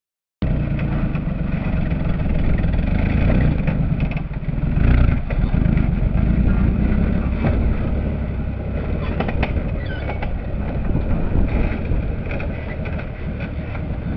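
Off-road 4x4 vehicle engine running under load, a loud low rumble with scattered knocks and rattles, cutting in suddenly about half a second in.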